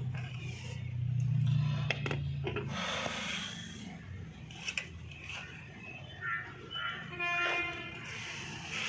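Metal scraping and clicking as a drum brake shoe's return spring is worked with a screwdriver on the rear brake of a Mahindra Xylo, with short metallic rings near the end. A low steady hum sounds under the first three seconds.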